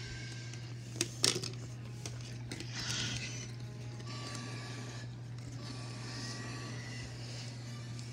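Plastic Playmobil toy figures being handled, with two sharp clicks about a second in and some light rustling around three seconds in, over a steady low hum.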